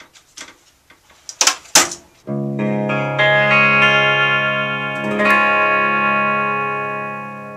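Distorted electric guitar chords struck and left to ring, a few more notes added, then slowly fading: a short music sting. Before it, about a second and a half in, a few short sharp sounds.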